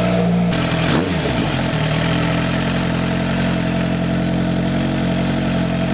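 A 1986 Kawasaki GPZ1000R inline-four idling hot at operating temperature. Its note shifts and wavers briefly about a second in, then runs steady. At this heat it should be dropping cylinders from lost spark, but it is not acting up.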